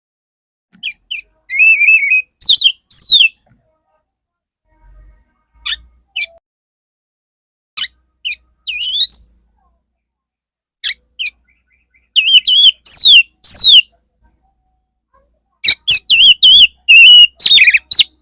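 Male oriental magpie-robin singing: loud phrases of clear whistled, sweeping and warbling notes, broken by pauses of a second or two, with a dense run of notes near the end.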